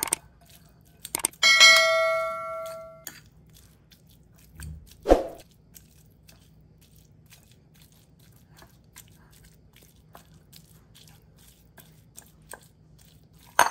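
A couple of clicks, then a bright bell-like chime that rings out and fades over about a second and a half. After it, a metal fork taps and scrapes in a glass bowl as flaked salmon is mashed, with one sharper knock about five seconds in.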